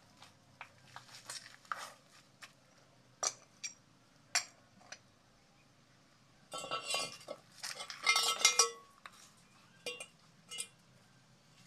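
Pipe wrench clinking and scraping on a steel pipe fitting: scattered sharp metal clicks, with two longer bouts of rasping scrapes about six and a half and eight seconds in, the second the loudest.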